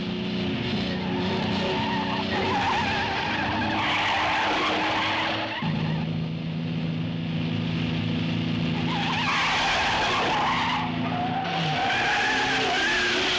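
Car engines running hard as a Sunbeam Alpine convertible and a pursuing black car race along a dirt road, with tires squealing and skidding several times.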